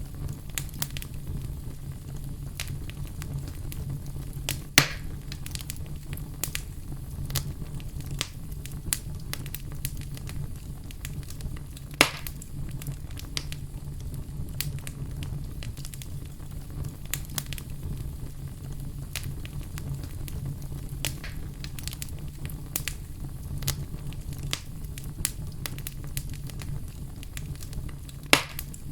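Wood fire burning with a steady low roar and constant sharp crackling, broken by three louder pops: about five seconds in, at about twelve seconds, and near the end.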